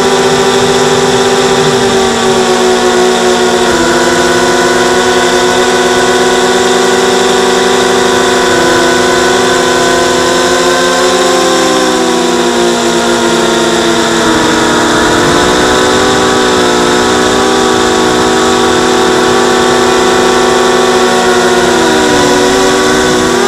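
Motors and propellers of an XHover 230 mini quadcopter in flight, heard close up from the onboard camera. A loud, steady buzz of several tones that drift up and down together as the throttle changes, dipping in pitch twice.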